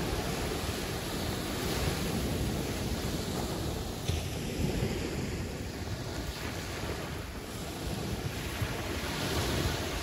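Caribbean Sea waves breaking and washing in, a continuous surf rush that swells about two seconds in and again near the end, with a low wind rumble on the microphone.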